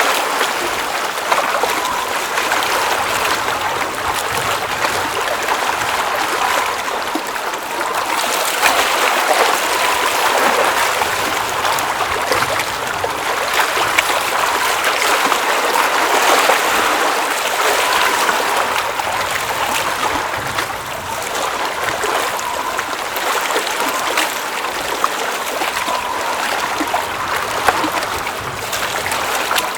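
Water running and trickling at the edge of a glacial mountain lake: a steady rush with small splashes and gurgles scattered through it, swelling and easing slightly.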